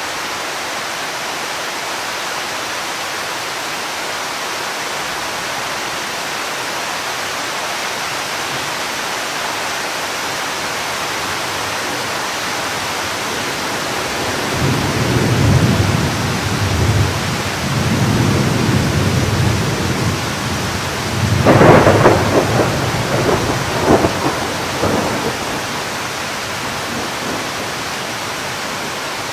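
Thunderstorm: steady rain hiss, then about halfway through a rolling rumble of thunder that lasts about ten seconds. Its loudest cracks come around three quarters of the way through, loud enough to distort the recording.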